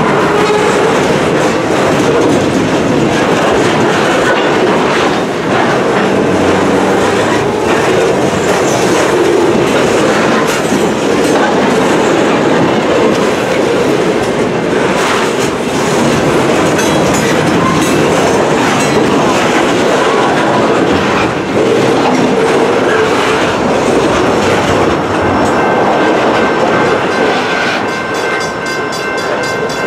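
Freight train rolling past loud and steady, its boxcars and lumber-loaded centerbeam flatcars clattering over the rail joints. Near the end the last car goes by and a grade-crossing bell rings.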